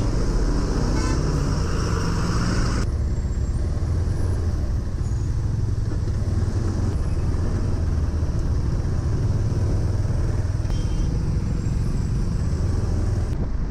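Motorcycle engine running at low speed in slow, stop-and-go traffic, a steady low drone with the noise of trucks and cars close around it. A louder rush of noise lasts until about three seconds in.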